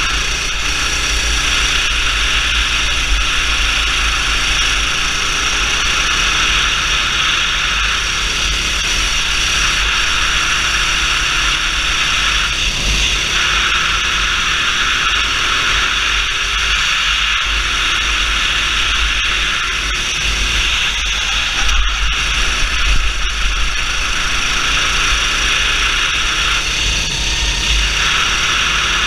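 Onboard sound of a Sodi kart at racing speed: its engine running, pitch rising and falling through the corners, under heavy wind noise on the microphone.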